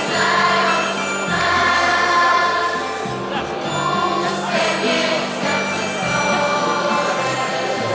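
A choir singing a Polish Christmas carol with instrumental accompaniment, in long held notes, the chord changing every second or two.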